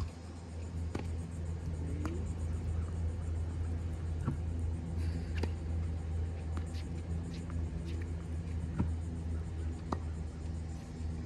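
Slinger Bag tennis ball machine running with a steady low hum. Sharp pops come at irregular intervals as tennis balls are launched and volleyed.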